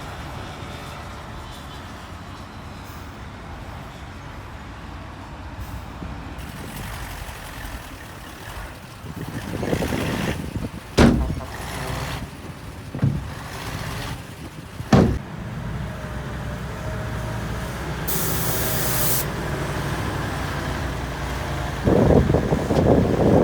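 Heavy earthmoving machinery with diesel engines running steadily. Two sharp metal clanks come a few seconds apart midway, and a short hiss of air from a truck's air brakes follows. A louder, rougher rumble comes near the end.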